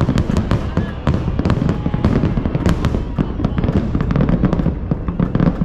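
Aerial fireworks going off in a rapid barrage: many sharp bangs and crackles one after another over a continuous low rumble.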